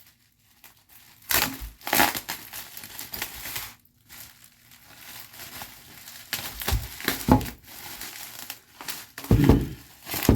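Cardboard and wrapping of a parcel being crumpled and torn open by hand in irregular bursts, with a louder dull thump near the end.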